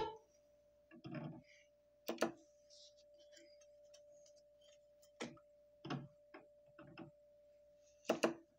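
Handling noises at a turntable while a 45 rpm single is turned over: a series of soft knocks and clicks spread over several seconds, over a faint steady tone.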